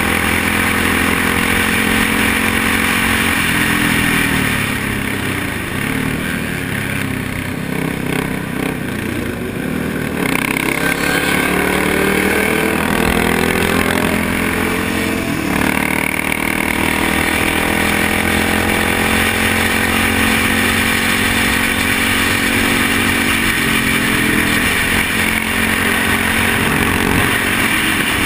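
Motorcycle engine running at road speed. It eases off about five seconds in, then pulls up through the revs from about ten seconds in as the bike accelerates.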